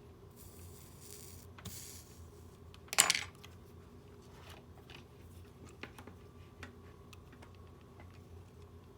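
A small metal object clinks sharply once on a hard work surface about three seconds in. Before it come brief rustles, and faint ticks of small tools being handled follow.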